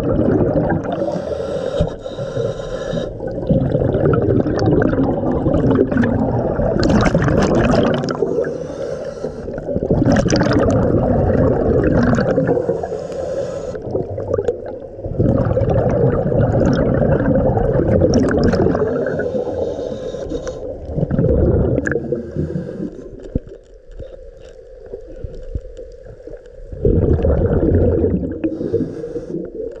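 Scuba diver breathing through a regulator underwater: hissing inhalations of about two seconds alternate with rumbling, gurgling bursts of exhaled bubbles.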